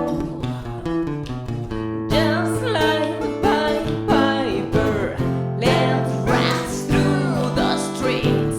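Rock band music in an instrumental passage: a lead guitar playing bending, sliding notes over sustained chords and a steady bass.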